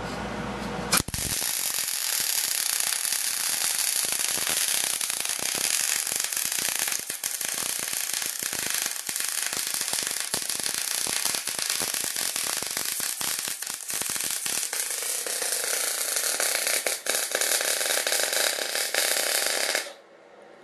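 Wire-feed welder's arc crackling and sizzling steadily on steel. It strikes about a second in and runs without a break for nearly twenty seconds, then cuts off suddenly near the end as the trigger is released.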